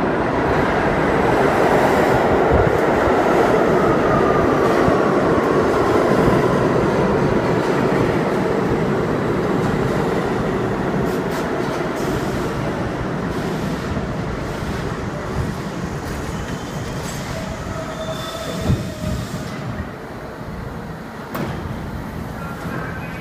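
R32 subway train pulling into the station, wheels and motors rumbling loudly, with a whine that falls in pitch as it slows. Near the end the brakes give brief high squeals and there is a thump as the train comes to a stop, after which it is quieter.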